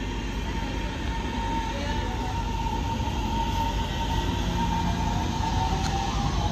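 CRRC DE-Hybrid diesel-electric shunting locomotive running slowly past, a steady whine over a low rumble; the whine drops in pitch near the end as it goes by.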